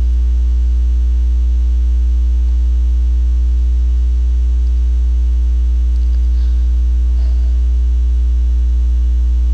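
Steady, loud low electrical hum with a fainter higher tone above it, unchanging throughout: mains hum picked up in the recording.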